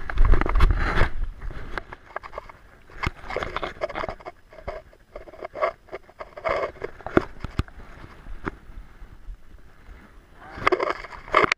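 Clothing and gear rubbing and knocking against a body-mounted action camera and its microphone: irregular scrapes, clicks and knocks, loudest in the first second and again near the end.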